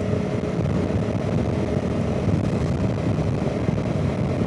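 Honda CRF300 Rally's single-cylinder engine running steadily at road speed, with wind noise on the microphone.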